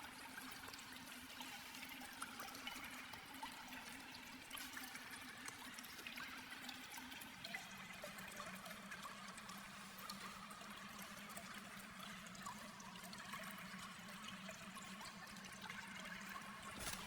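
Faint trickling of water, with a steady low hum underneath that drops a little in pitch about seven seconds in.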